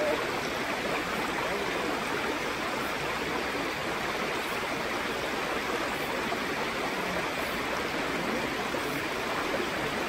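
Mountain valley stream flowing, a steady even rush of water.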